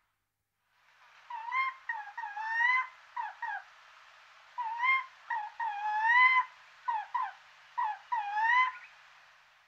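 Eurasian jay calling: a run of short, clear calls, a few of them longer and bending upward in pitch, in two bursts with a pause about four seconds in.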